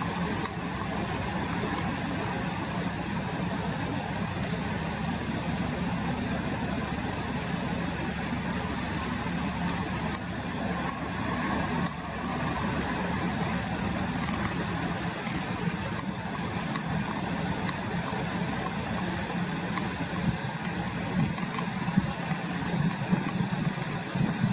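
Steady outdoor background noise: an even low hum with hiss above it and a few faint ticks, and no clear event standing out.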